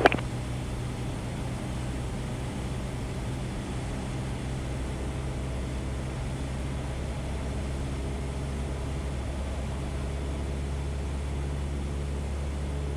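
Cessna 172's piston engine droning steadily in flight, a low even hum heard from inside the cockpit.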